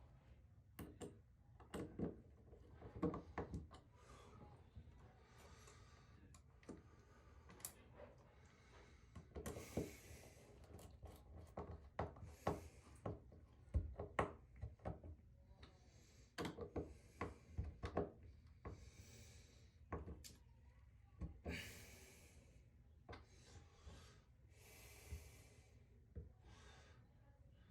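Faint, irregular clicks, light knocks and rubbing sounds of hand work in a small room, with a few brief hissy swishes.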